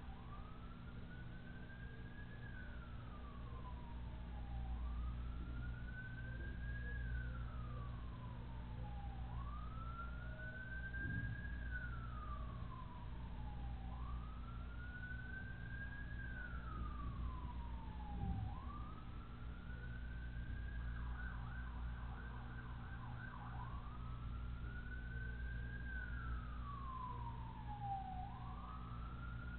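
Emergency vehicle siren wailing. Each cycle climbs quickly and falls slowly, repeating about every four and a half seconds, with a brief fast warble about two-thirds of the way in. A steady low hum and two soft knocks sit beneath it.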